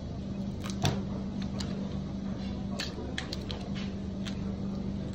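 Shells of large raw prawns cracking and clicking as they are peeled by hand, in scattered sharp clicks with one louder crack a little before a second in. A steady low hum runs underneath.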